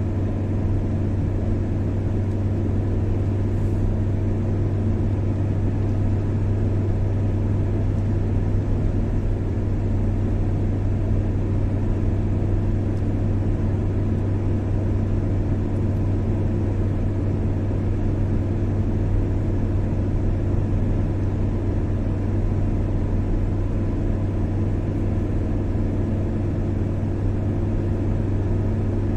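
A car driving at a steady speed: a continuous low drone of engine and road noise that holds even throughout.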